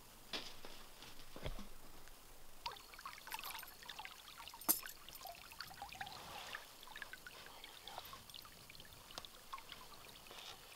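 Shallow river water sloshing and trickling around a wading boot, with many small splashes from a few seconds in and one sharp click about halfway through.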